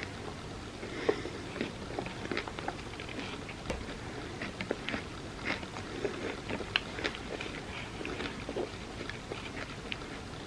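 Close-miked chewing of a tortilla dessert lasagna layered with chocolate and peanut butter: wet mouth smacks and many small clicks, a few of them louder.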